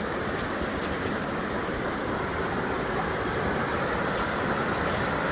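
Steady rush of a fast stream tumbling over small waterfalls.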